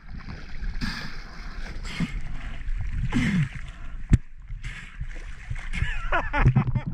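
Choppy seawater splashing, gurgling and sloshing over a camera held at the sea surface, in irregular surges, with one sharp knock about four seconds in.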